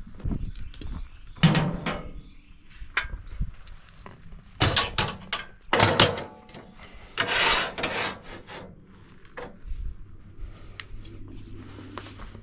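A dozen or so irregular wooden knocks, thunks and scrapes as a large eastern white pine log is shifted and secured against the bunks of a band sawmill. The loudest knocks come at about one and a half seconds and around five and six seconds, with a longer scrape a little later. A steady low engine hum runs underneath.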